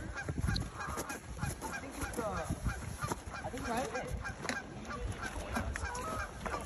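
A flock of birds calling, many short overlapping calls throughout, over a low rumble.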